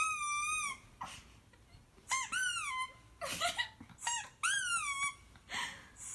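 Squeaky-toy squeaks: a run of high squeaks that dip and rise in pitch, with short breathy hisses between some of them.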